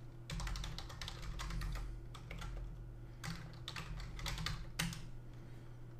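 Typing on a computer keyboard: quick runs of key clicks that stop about five seconds in, over a low steady hum.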